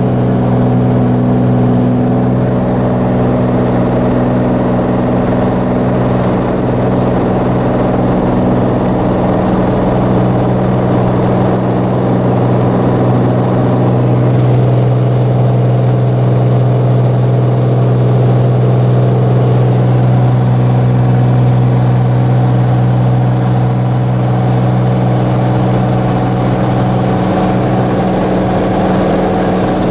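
Cirrus SR22 Turbo's turbocharged six-cylinder engine and propeller heard from inside the cabin, a loud, steady drone at climb power just after takeoff.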